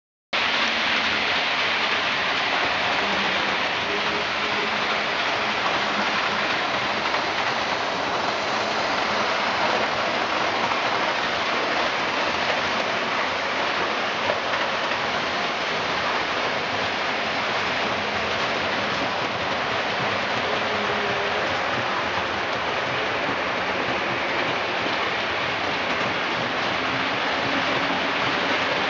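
A steady, even hiss that stays at the same level throughout, after a brief dropout right at the start.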